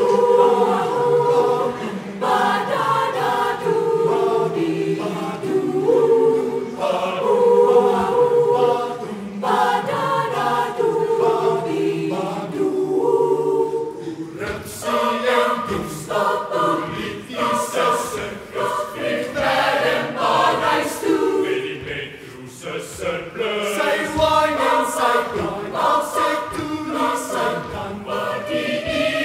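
Large mixed choir singing in close harmony with held chords. About halfway through the singing turns choppier and more rhythmic, with sharp beats.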